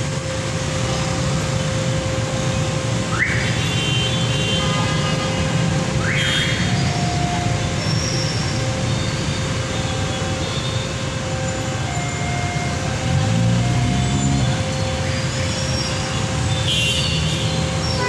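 Road traffic running at a railway level crossing while the barrier arm rises, with a steady high tone throughout. Two short rising squeals come a few seconds in, and a vehicle engine swells louder about two-thirds of the way through.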